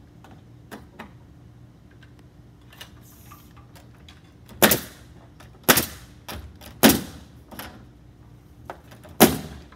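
Pneumatic roofing nail gun firing four times, irregularly spaced over the second half, driving nails through a metal drip edge into the plywood roof deck. Fainter clicks and taps come before the shots.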